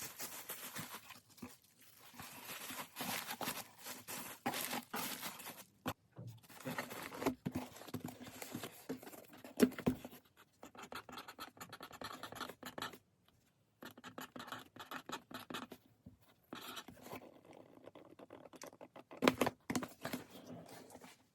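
Hands handling packing materials: irregular rustling and scratching with scattered light knocks and taps, stopping and starting in short pauses.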